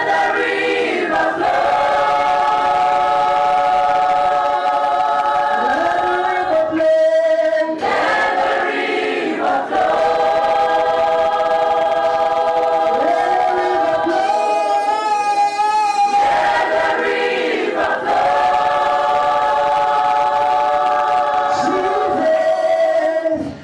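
Worship choir singing long, held chords in several voices, the phrases broken by brief pauses, one of them near the middle and another about a third of the way in.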